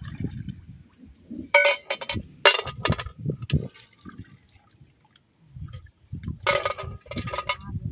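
Shallow paddy water splashing and sloshing as hands grope among rice plants in a flooded field. Two bouts of louder, sharp splashes come about one and a half seconds in and again about six and a half seconds in.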